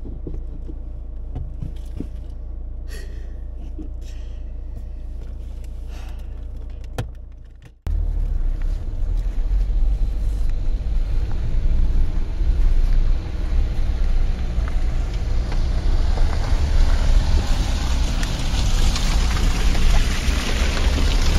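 Dacia Duster 4x4 with a 1.5 diesel, first heard from inside the cabin as a steady low engine and road drone. After a sudden cut about eight seconds in, it is heard from outside on a muddy, stony forest track: engine running and tyres working through mud and gravel, getting louder as the car comes close.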